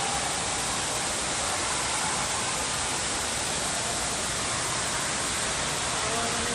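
Steady rushing of falling and splashing water in an indoor water park, an even hiss with no breaks.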